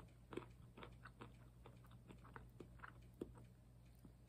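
Faint crunching of almonds being chewed with the mouth: short, irregular crunches, two or three a second.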